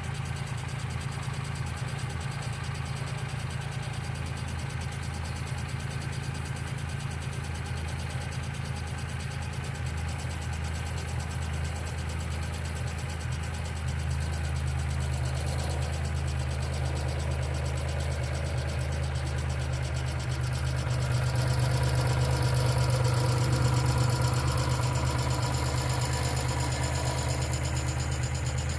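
1995 Geo Metro engine idling steadily. It gets louder about halfway through and again about two-thirds of the way through.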